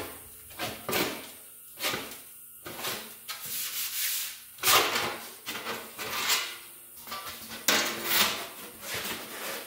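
Thin sheet steel rubbing and scraping against a steel pipe as it is rolled over a pipe anvil by hand, in repeated strokes roughly one a second. The sheet is being curved into a cone shape.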